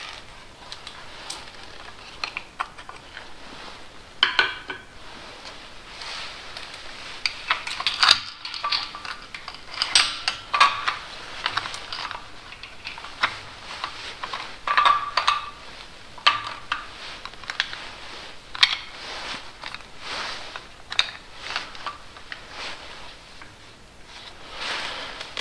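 Steel timing chain clinking and rattling in irregular short spells as it is handled and fed around the sprockets and guides of a Mercedes M113 V8.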